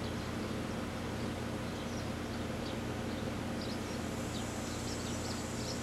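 An 8-year-old 4-ton R-22 air-conditioning condensing unit running: a steady, unchanging hum with a low drone from the compressor and the whir of the condenser fan.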